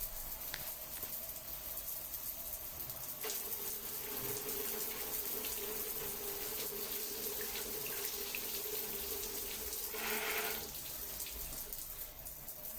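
Running water, a steady rushing hiss. A steady tone joins it about three seconds in, and a brief louder rush comes just before the tone stops near the end.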